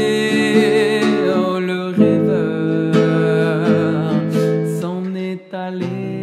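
Acoustic guitar strummed under a man's long held, wavering sung notes. The guitar stops for a moment about five and a half seconds in, then a new chord is struck.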